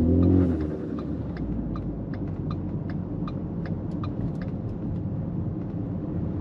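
Ford Fusion driving at road speed: a steady low rumble of road and drivetrain noise with scattered light clicks. A small noise from the front, at the transfer case, is still there, while the rear differential's bearing noise is about 80% gone.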